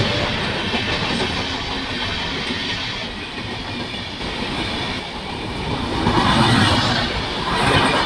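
Passenger train rushing past at speed, its wheels clattering rhythmically over the rail joints, easing slightly mid-way and swelling again near the end.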